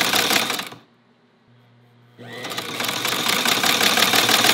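Motorized cobbler's leather sewing machine, a hand-crank shoe-patcher type driven by a small add-on sewing-machine motor through a round belt, running fast with a rapid mechanical clatter and no thread in the needle. It stops about a second in, a low motor hum comes up, and it starts running again a little after two seconds.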